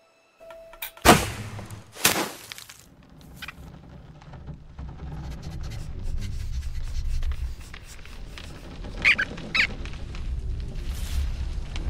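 Cartoon sound effects: two sharp thunks about a second apart, then a low rumble that slowly builds, with two short squeaks about nine seconds in.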